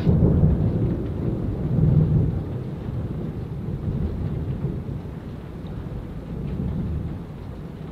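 Rolling thunder rumbling, loudest in the first couple of seconds and then dying away, over steady rain.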